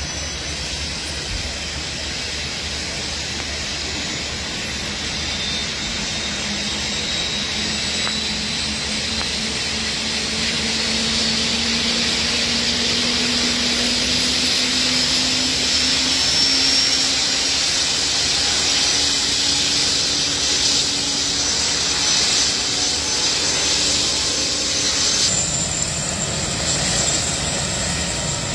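Air ambulance helicopter running up on the pad before take-off. The turbines whine and the rotor runs, both rising slowly in pitch and getting louder as the rotor spools up. Near the end the high whine shifts to a higher note.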